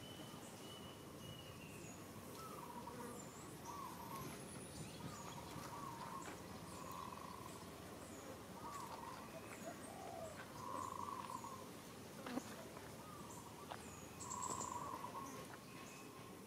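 Outdoor birdsong: a short low call repeats every second or so, with thin high chirps above it and a few sharp clicks.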